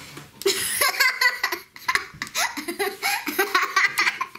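A young child laughing hard in quick repeated bursts, starting about half a second in.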